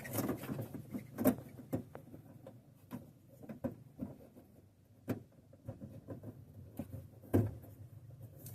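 Scattered plastic clicks, taps and rustling as a Sylvania 9005 headlight bulb and its wiring are worked into the back of the headlight housing, with a few sharper knocks.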